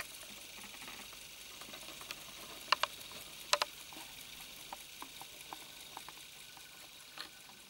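Several mechanical folding travel alarm clocks ticking together, a dense, faint patter of overlapping ticks, with a few sharper clicks around three seconds in and again near the end.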